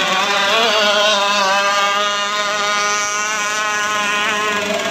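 Several radio-controlled racing boats running at speed, a steady high-pitched engine buzz that wavers slightly in pitch as they race.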